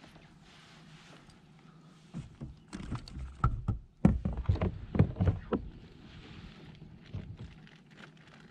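A quick run of knocks and thumps against a kayak as a fish is measured on a measuring board, loudest from about four to five and a half seconds in.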